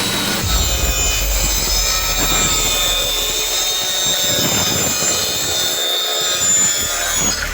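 A 1250 W handheld marble cutter with a 4-inch saw blade cutting plywood: a steady high motor whine over the noise of the blade in the wood.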